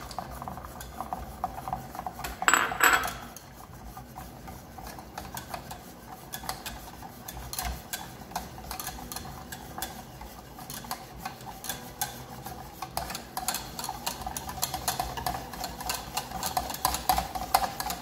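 Wire whisk stirring chocolate into hot mirror glaze in a stainless steel saucepan, the wires scraping and clicking steadily against the pan as the chocolate melts in. A louder clatter about two and a half seconds in.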